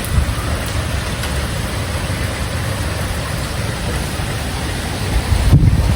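Steady hiss of storm rain over a fluctuating low rumble, with one brief louder low surge near the end.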